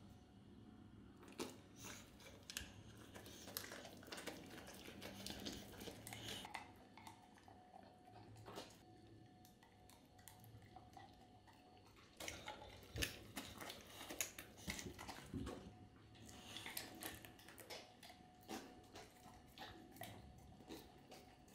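A boxer and a pit bull licking ice cream off a metal teaspoon, with quiet, irregular wet smacks and clicks of tongue and lips.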